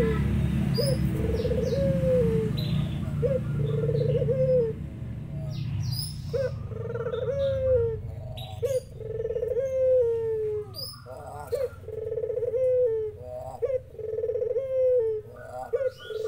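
Puter dove (domestic ringneck dove) cooing over and over, each phrase a short note followed by a longer trembling coo that falls at the end, about every second and a half. Small birds chirp high above it, and from about six seconds other doves join in with higher, falling calls. A low hum underneath fades out after about five seconds.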